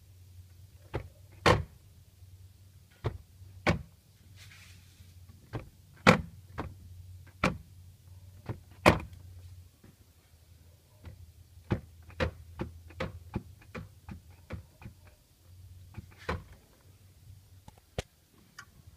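Peugeot 206 CC's rear parcel shelf knocking, a couple of dozen sharp knocks at irregular intervals, some loud and some faint, over a steady low hum. The knocking is the fault being shown: the shelf is loose.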